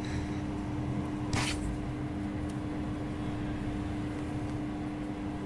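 Quiet room tone with a steady low hum. About a second and a half in there is a brief rustle of hair being handled.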